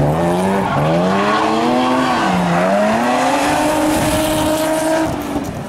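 Drift car's engine revving up and down twice, then held at high revs while the tyres spin and squeal, easing off near the end.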